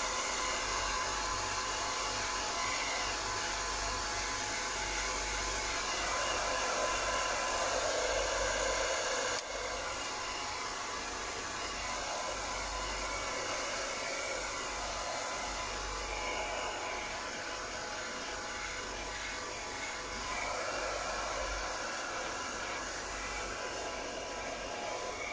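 Handheld hair dryer blowing steadily, drying a wet kitten's fur; its level dips a little about nine seconds in.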